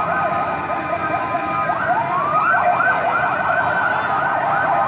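Electronic siren yelping, its pitch rising and falling rapidly over and over; about two seconds in it sweeps up slowly once, then goes back to the fast yelp.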